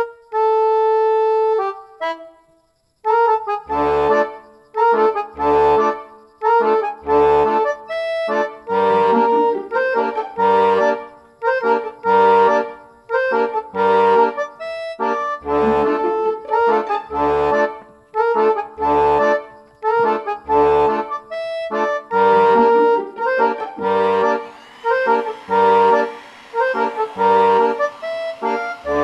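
Instrumental background music: a melody of pitched notes over a low beat that falls about every second and a half. The music breaks off briefly about two seconds in, then starts again.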